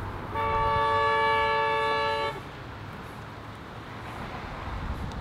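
A vehicle horn honks once, a steady two-tone chord held for about two seconds, over the low rumble of street traffic.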